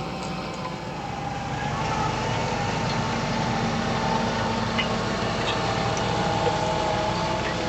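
Fendt 724 Vario tractor running steadily while pulling a six-furrow plough, its engine hum carrying a steady whine and growing a little louder about two seconds in.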